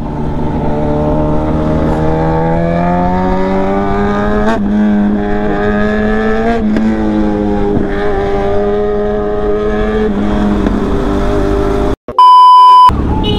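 Motorcycle engine pulling under acceleration, its pitch rising for the first few seconds and then holding steady, with two brief breaks like gear changes. Near the end a loud steady beep, a TV test-card tone, cuts in for under a second.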